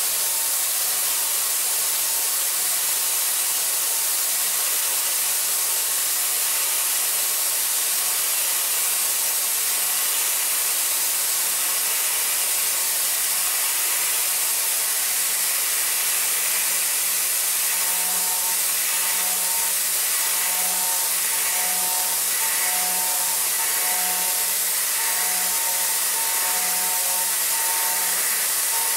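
DMG MORI CMX1100V vertical machining center high-speed milling a metal block dry with a Sandvik end mill in a hydraulic holder: a steady high hiss of the spindle and cut, throwing hot chips. In the second half a faint tone pulses about once a second as the tool works its path.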